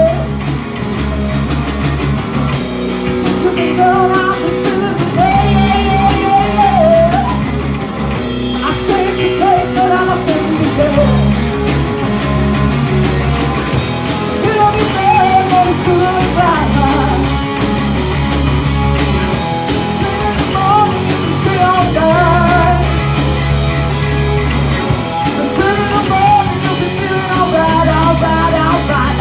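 Rock music with singing, electric guitar, bass and drums.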